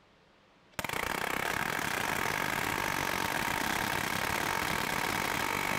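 Metabo HPT pneumatic palm nailer hammering rapidly and steadily against a steel test anvil. It starts about a second in and keeps a fast, even stream of blows.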